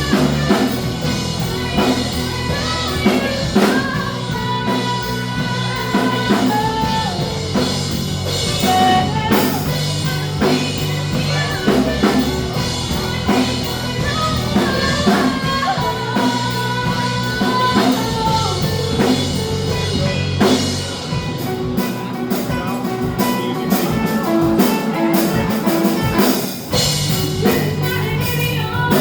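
A rock band playing a song, with drum kit, guitar and singing.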